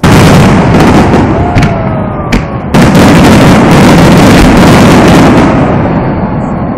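Fireworks finale: aerial shells bursting in rapid, overlapping booms. A sharp crack comes about two seconds in, and a second dense wave of bursts just before three seconds, dying away toward the end. Picked up very loud on a phone's microphone.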